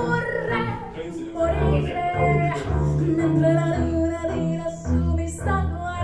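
Female vocal with upright double bass playing through a pair of Trenner & Friedl PHI full-range single-driver loudspeakers, with low plucked bass notes moving under the voice.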